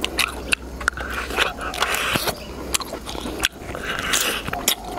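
A person biting and chewing crispy-skinned roast squab, with many sharp crunching clicks.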